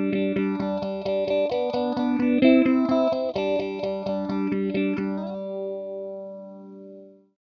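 Electric guitar (Schecter Ultra III on its neck humbucker) played through a GarageTone Oil Can phaser pedal into a clean Vox AC15C1 amp: quickly picked chords that change every second or so, with a slow sweeping phaser swirl. About five seconds in the picking stops and the last chord rings out and fades away.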